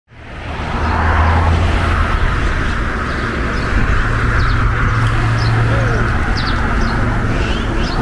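Outdoor ambience fading in: a steady hiss over a low rumble, with small birds chirping from about six seconds in.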